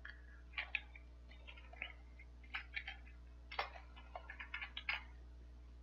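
Faint computer keyboard typing: scattered single key clicks, with a quicker run of keystrokes near the end.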